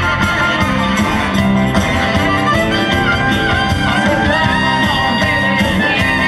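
Live 1950s rock and roll band playing an instrumental break, with a saxophone carrying the lead over electric guitar, bass, keyboards and drums.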